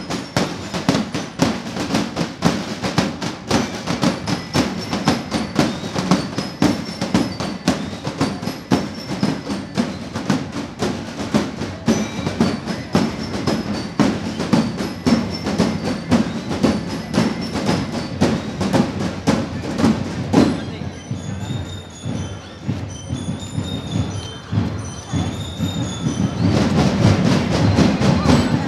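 Marching band music: drums beating steadily under a high, bell-like melody. About two-thirds through the drums thin out, leaving mostly the bell melody, and then they come back in strongly near the end.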